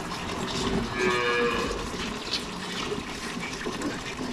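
A Holstein calf moos once, a short call about a second in.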